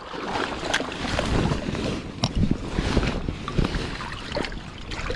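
Shallow seawater sloshing and splashing as a large stone is lifted and turned over in a rock pool by hand, with a few sharp clicks of stone and shingle knocking.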